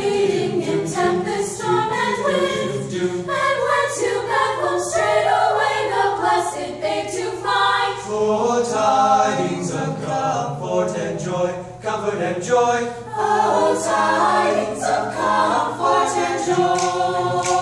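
A choir singing a Christmas song a cappella, several voices together in harmony.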